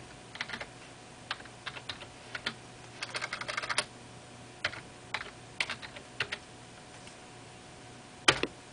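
Typing on a computer keyboard: scattered single keystrokes with a quick run of several strokes about three seconds in, and one louder keystroke near the end.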